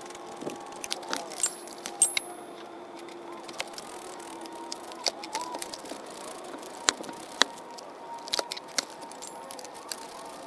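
Irregular metallic clicks and clinks of hand tools and bolts on a Chevy Silverado's engine as the water pump bolts are taken out, over a faint steady hum.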